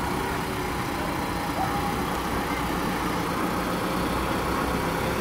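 Van engine running as the van drives slowly past and pulls away, a steady, even rumble.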